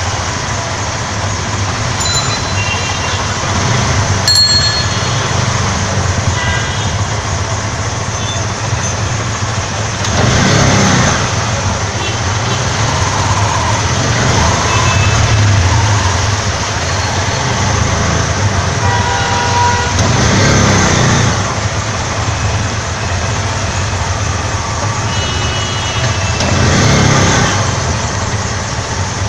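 Ride in a CNG auto-rickshaw through a flooded street: the small engine runs with a steady low hum under street traffic noise. The noise swells three times, and there are a few brief horn toots.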